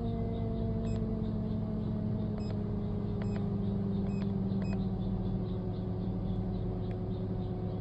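Car engine flagged with a cylinder 1 misfire code (P0301) idling, its pitch sinking slowly as it settles back after a rev. Five short, sharp ticks sound over the first five seconds.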